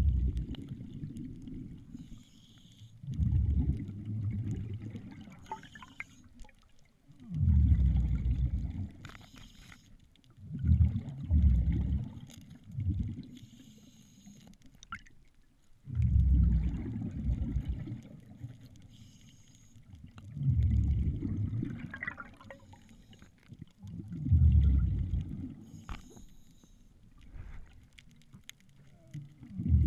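A diver breathing underwater through a regulator: a hiss on each inhale, then a low gurgling burst of exhaled bubbles, repeating about every four seconds.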